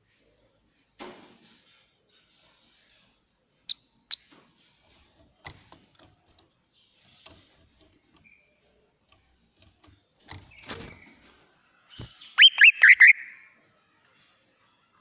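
Greater green leafbird (cucak ijo) calling: scattered short clicks and rustles, two brief high call notes about four seconds in, then near the end a loud, quick run of about five down-slurred whistles.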